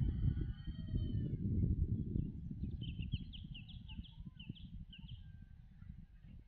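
Wind buffeting the microphone in a low rumble that eases off through the clip. Birds call faintly over it, with a quick run of short, high chirps from about three to five seconds in.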